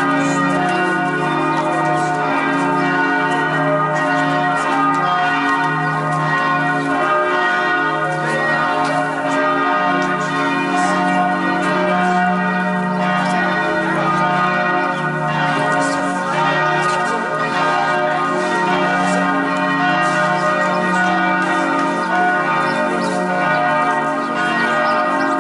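Bells of the Church of the Holy Sepulchre ringing together without pause, many overlapping ringing tones. This is the daily noon ringing, which the guide takes to mark the hour Jesus was nailed to the cross.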